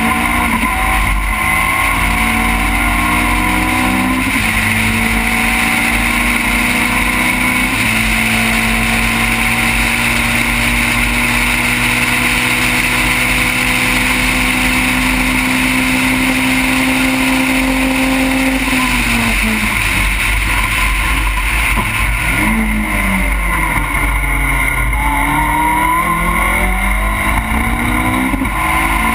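Race car engine of an open Caterham Seven-type car, heard onboard at high revs. Its pitch steps a couple of times early on, then climbs slowly for a long stretch. About two-thirds through it drops away and rises and falls several times in quick succession, as under braking and gear changes.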